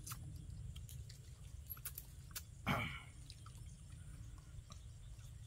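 Quiet eating sounds: small clicks and wet smacks as grilled fish is picked apart by hand and chewed. One short vocal sound, like a grunt or murmur, comes about halfway through.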